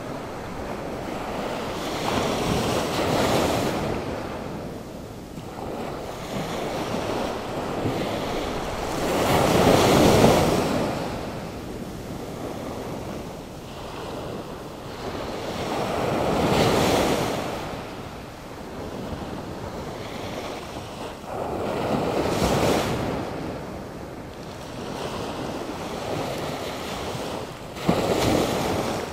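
Storm-driven Atlantic Ocean surf: waves breaking one after another, the wash swelling and falling about every six seconds, with a sharper crash near the end.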